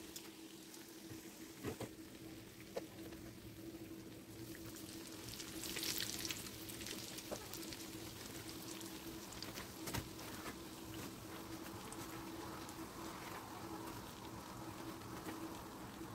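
Pirozhki deep-frying in a pan of hot oil: a steady sizzle with scattered crackles and pops, which flares up louder for about a second around six seconds in. A single sharp click comes about ten seconds in.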